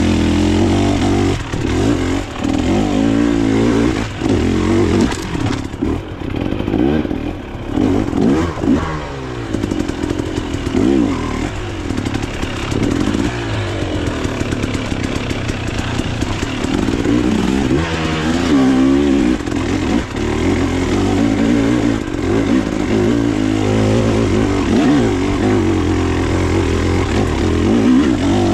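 Dirt bike engine revving up and falling back over and over as the throttle is opened and shut, with clatter and rushing noise from riding over rough ground.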